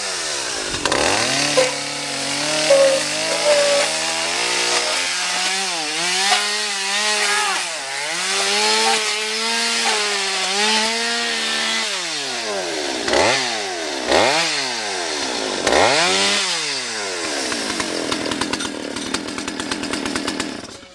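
Two-stroke chainsaw cutting into a painted panel. The engine note wavers and dips under load. In the second half it is revved in several quick blips, each falling away and climbing back.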